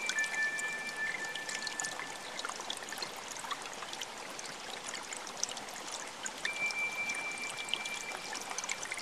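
Water running and trickling like a small stream, a steady splashing hiss with fine sparkling drips. A long, high, pure held tone sounds over it at the start and again from about two thirds of the way in.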